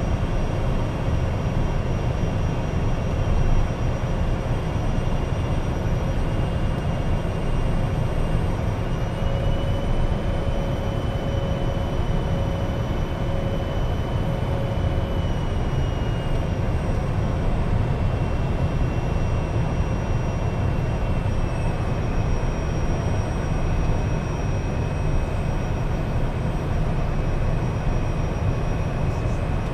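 Cockpit noise of an Embraer Phenom 100 light jet on approach: a steady, loud low rumble of airflow and its two turbofans, with a thin engine whine on top that rises a little about nine seconds in and drops back in small steps later as the thrust changes.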